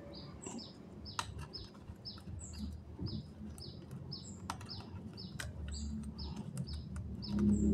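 A small bird chirping over and over, short high falling chirps about twice a second, with a few sharp light clicks from the laptop's connectors being unplugged. A low steady tone comes in near the end.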